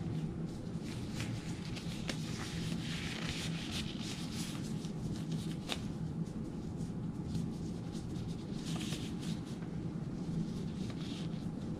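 Disposable exam gloves and a disposable isolation gown rustling as the gloves are pulled on and stretched over the gown's cuffs, with a few sharp little snaps, over a steady low hum.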